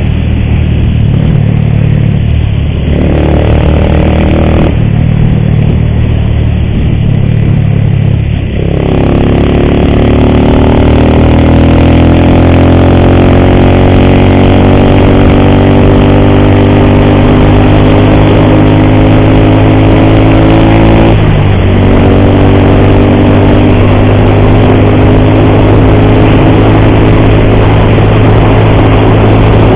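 Motorcycle engine running while ridden. About 9 s in it speeds up with a slowly rising pitch, and shortly after 21 s it dips briefly, as at a gear change, then goes on steadily.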